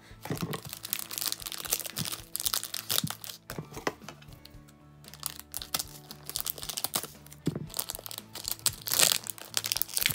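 Scissors snipping and clear plastic shrink-wrap crinkling and crackling as the wrap is cut and pulled off a cube puzzle. There is a short lull about halfway and the loudest crinkling near the end, with background music underneath.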